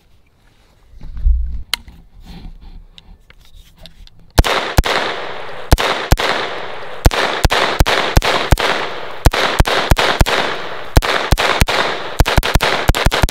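HK SP5 9mm semi-automatic short-barreled rifle fired in a quick, uneven string of about thirty shots, roughly three a second, starting about four seconds in, each shot echoing. The rifle keeps cycling without a malfunction after being cleaned and lubricated. A low bump of handling comes before the firing.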